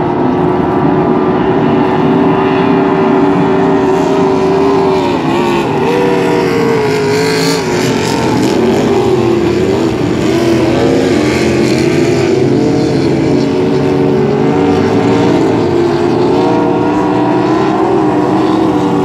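Several racing powerboats running flat out, their engines a loud, steady drone; for several seconds in the middle the engine pitch wavers up and down.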